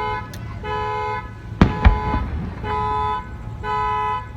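A car alarm honking the car's horn in repeated blasts, about one a second, set off by a loud firework. Two sharp firework bangs sound about a second and a half in.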